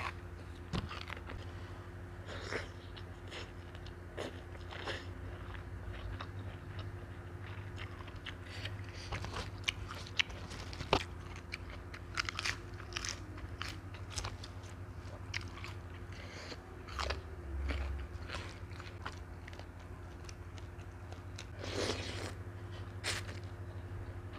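Close-miked eating sounds: crunching raw lettuce leaves and chewing a Thai noodle salad, in many short wet crunches and mouth clicks, with a noodle slurp near the end.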